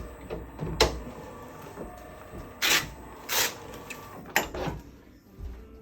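Chiropractic treatment table knocking and scraping during lower-back traction: about four short noisy strokes, the two in the middle longer.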